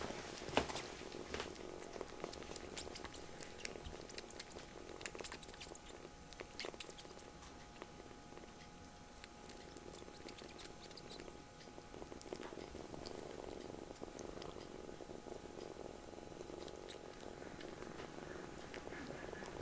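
Kitten purring steadily, with scattered light clicks and rustles.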